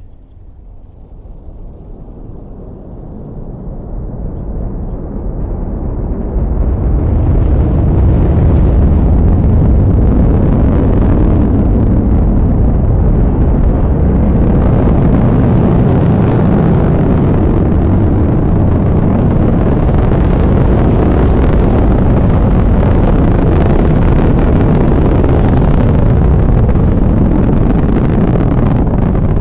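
Antares rocket's twin RD-181 first-stage engines at ignition and liftoff: a deep rumbling noise that swells over the first eight seconds or so, then holds loud and steady with a crackling edge.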